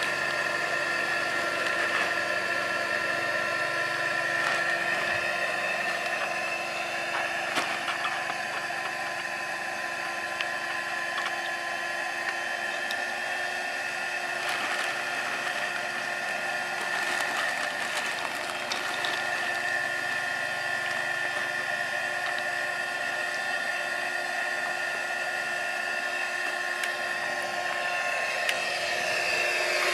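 Small electric blower motor whining steadily, drawing air through a charcoal gasifier to get it burning and making gas. A few sharp clicks and clatters come from charcoal and the gasifier's metal lid being handled.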